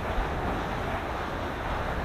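Wind buffeting the microphone outdoors: a steady rushing noise with a gusty low rumble and one brief thump near the start.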